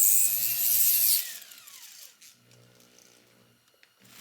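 High-speed rotary tool with a cone-shaped diamond cutter grinding out an undersized screw hole, then switched off about a second in, its whine falling as the motor spins down.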